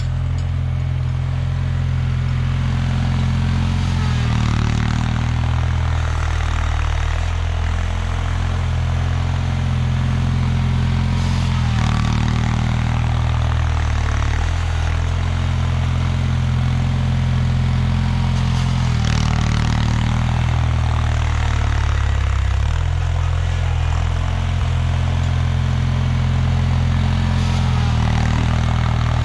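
The 23 hp twin opposed-cylinder Kohler K582 engine of a 1979 Bolens HT-23 garden tractor runs steadily under load while the tractor clears snow. Its pitch dips and recovers every few seconds as the load changes.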